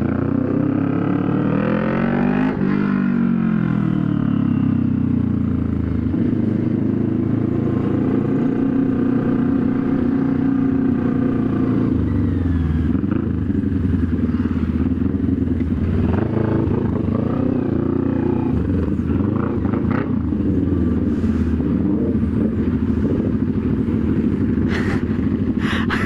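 CFMoto 400NK's parallel-twin engine running through a loud aftermarket slip-on exhaust with no resonator, while riding. The engine note rises under throttle and drops with each gear change or roll-off, sharply about two and a half seconds in.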